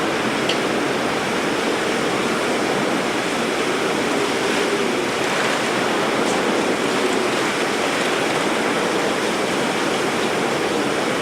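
Steady rushing noise of a storm's heavy rain and wind.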